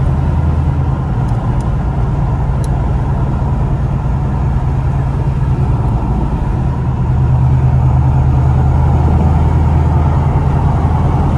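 Cabin sound of a 2016 Chevrolet Camaro SS's V8 cruising steadily at about 50 mph, a loud deep exhaust drone. The drone grows slightly louder about seven seconds in.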